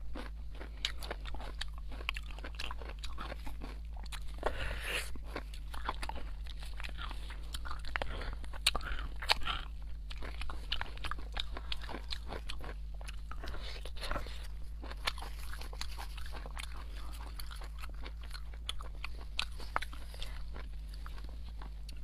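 Close-miked eating sounds of spicy beef bone marrow: chewing with irregular crisp, crunchy bites and wet mouth clicks, the food close to a clip-on microphone. A steady low hum sits underneath.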